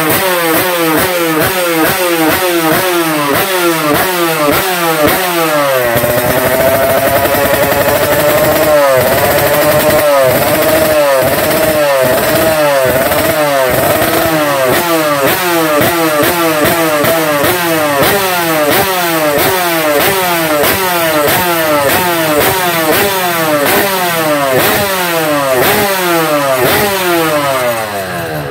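Race-tuned Yamaha RX-King two-stroke single, bored to 140 cc, revved hard by hand on a stand: quick throttle blips about twice a second, each rev rising and falling back, then held high and wavering for several seconds in the middle, then blipped again before the engine drops away near the end.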